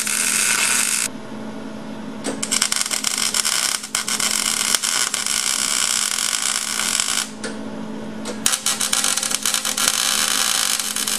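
Miller wire-feed (MIG) welder arc crackling in three runs: a brief one, a long one of about five seconds, and a last one of nearly three seconds, with short pauses between as a steel bracket is welded on. A steady low hum continues through the pauses.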